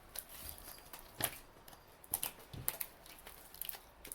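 Hands squeezing and poking sticky homemade glue slime: faint, scattered small squishes and clicks at irregular intervals.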